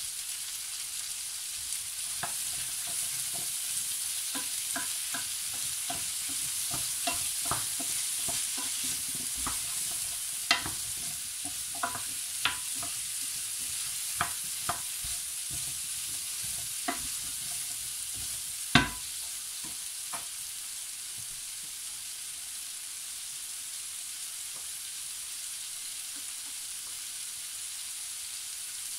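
Chopped root vegetables sizzling steadily as they fry in a roasting pan. From about two seconds in until about twenty seconds in, a wooden spoon stirs them, knocking and scraping against the pan; the loudest knock comes near the end of the stirring. After that only the sizzle goes on.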